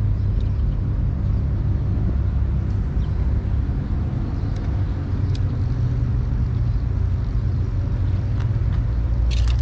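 Steady low engine-like rumble, with a few faint ticks scattered through and a short sharp rattle near the end.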